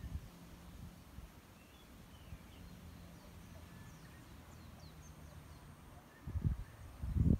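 Wind gusting against the microphone, two strong low buffeting rumbles near the end, over a faint outdoor background with scattered short bird chirps and whistles in the middle.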